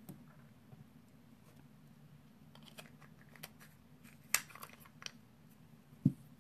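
A run of small clicks and light rattles from objects being handled, with one sharper click about halfway through and a short low thump near the end, over a faint steady hum.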